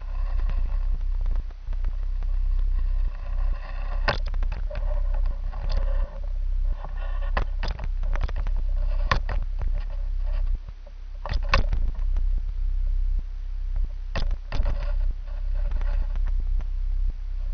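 Handling noise from a gutter pole camera being moved on its pole: a steady low rumble with scattered clicks and knocks, the sharpest about four, nine, eleven and a half and fourteen seconds in.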